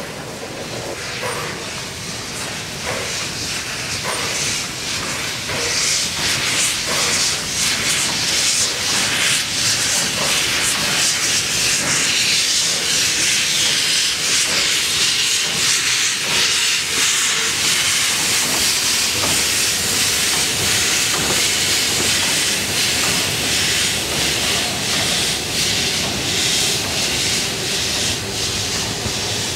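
Narrow-gauge 2-10-2 tank steam locomotive 99 7235 starting away with its cylinder drain cocks open: a loud hiss of steam from the cylinders with exhaust chuffs. It grows louder over the first several seconds as the engine comes closer, then stays loud as it passes.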